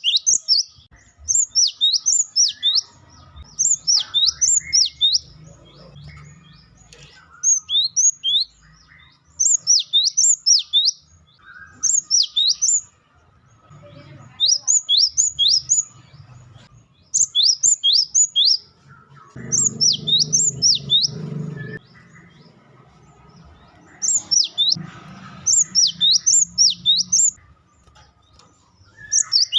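Cinereous tit (gelatik batu) calling in rapid bursts of sharp, downward-sweeping whistled notes, each burst about a second long and repeated every two to three seconds. A low muffled rumble sits under the calls about two-thirds of the way through.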